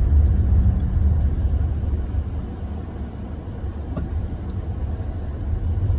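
A car's engine and road rumble heard from inside the cabin while driving, a steady low rumble that eases a little about halfway and picks up again near the end.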